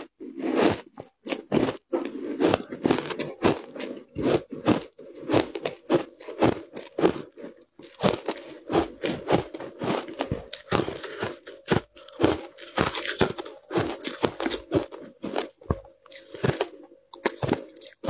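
Close-up crunching and chewing of compacted shaved ice dusted with matcha powder, many irregular crisp crunches as the ice breaks between the teeth.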